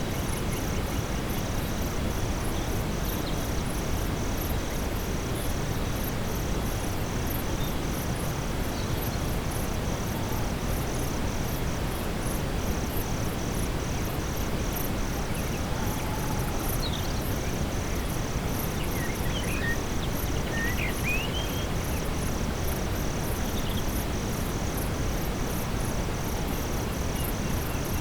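Steady brown noise, a low even rush, under a night-time forest ambience: insects chirping in an even, pulsing rhythm with scattered higher chirps. A few short bird calls come through around two-thirds of the way in.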